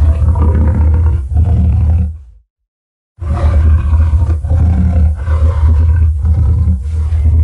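Designed Tyrannosaurus rex roar sound effect: a deep roar ends about two seconds in, and after a short silence a second, longer roar begins, breaking up in brief dips as it goes on.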